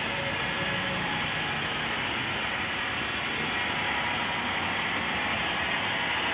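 Model railway train running on its track: a steady rolling rattle of small wheels on the rails with the motor's hum, slowly getting a little louder.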